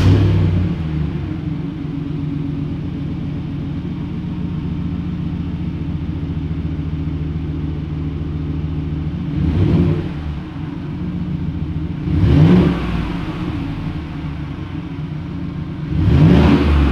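GMC Sierra 1500 V8 running on its stock exhaust manifolds with an MBRP exhaust, just after starting: it settles from a brief flare into a steady idle, then is revved three times, each rev rising and falling, about ten, twelve and sixteen seconds in.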